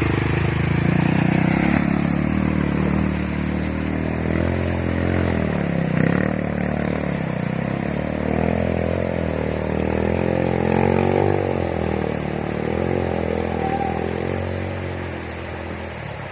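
Rusi KRY 200 dirt bike's 200cc engine revving up and down as it is ridden through a shallow, rocky river, fading near the end as the bike gets farther away.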